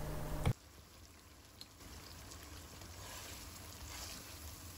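Green chillies and garlic cloves frying in oil in a wok. Salt is sprinkled in with a louder sizzle that cuts off sharply about half a second in, then a faint steady sizzle with light scraping as a spatula stirs the pickle.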